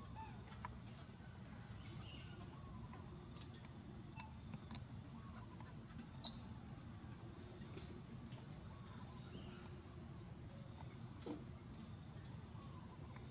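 Quiet outdoor ambience: a steady faint high whine over a low rumble, dotted with faint chirps and ticks, and one sharper click about six seconds in.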